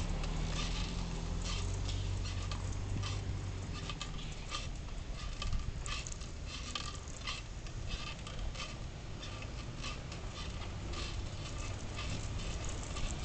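Road bike ridden along a street, heard from a camera mounted on the bike: irregular clicks and rattles over steady road and wind noise. A car's engine hums close by for the first few seconds.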